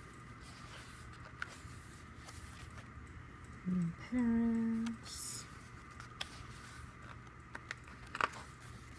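Pages of a large photo book being turned and handled: faint paper rustling with a few light taps. The sharpest tap comes near the end.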